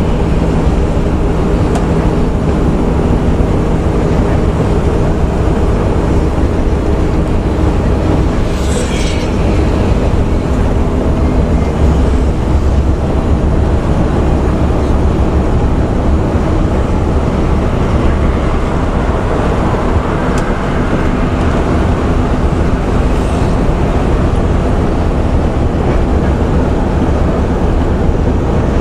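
Intercity bus's engine and road noise heard from inside the cabin while cruising: a steady low rumble with a constant engine hum. There is one short hiss about nine seconds in.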